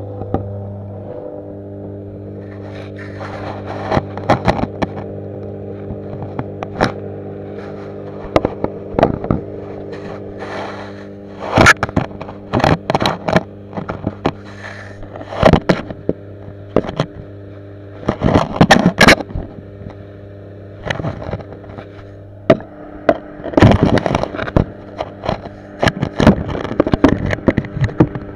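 Aquarium heard through an underwater camera: a steady low hum with evenly spaced overtones, from the tank's running equipment, under clusters of sharp clicks, knocks and scrapes as the camera in its housing is moved about and knocks against the tank's stones and glass. The knocks come thickest around the middle and again near the end.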